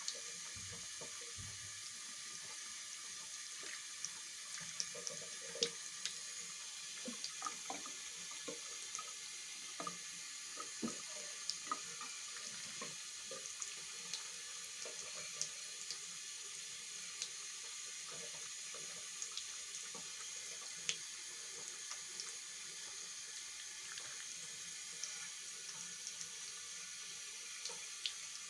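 Thin stream of water running steadily from a tap into a basin, with small splashes and ticks scattered throughout.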